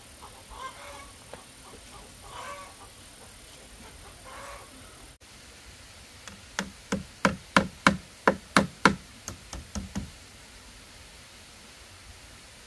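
A few faint animal calls, then a run of about a dozen sharp knocks in quick succession, roughly three a second, stopping about ten seconds in.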